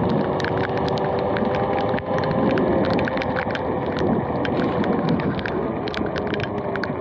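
Electric dirt bike riding on wet pavement: a steady motor whine over the hiss of the tyres and the rushing wind. Frequent sharp, irregular ticks of raindrops hitting the camera run over it.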